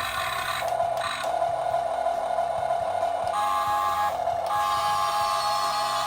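Small electric gear motors of a Huina 1550 RC excavator running with a steady whine, shifting to a higher whine about halfway through as a different function is worked.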